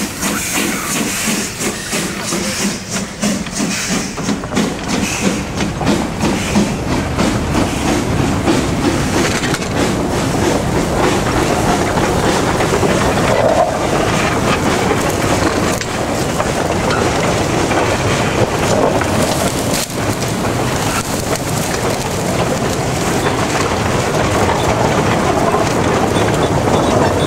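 Small narrow-gauge sugar-mill steam locomotive drawing a train of loaded cane wagons slowly past. There is a run of rapid beats in the first few seconds as the engine goes by, then a steady rumble and clatter of wagon wheels on the rails.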